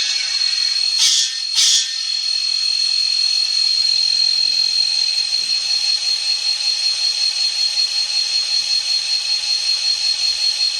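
Sound decoder in an N scale SD40T-2 model locomotive playing a diesel idle through its tiny speaker, with the model standing still: a steady hiss with a high whine and a pulsing beat of about three a second, and two short sharp bursts about a second in.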